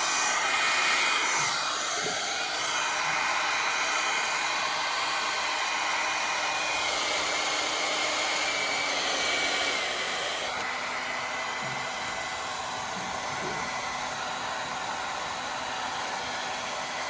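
Wireless hair dryer running, a steady rush of blown air with a faint motor whine. About ten seconds in the sound drops a little in level and changes tone.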